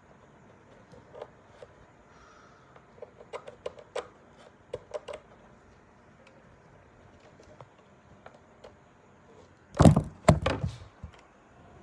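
Handling noise on a phone's microphone: scattered light taps and knocks, then a cluster of loud thumps and rubbing about ten seconds in as the phone is grabbed and picked up.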